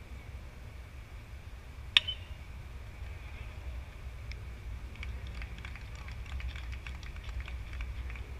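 A bat hitting a pitched baseball: one sharp crack with a brief ring, about two seconds in.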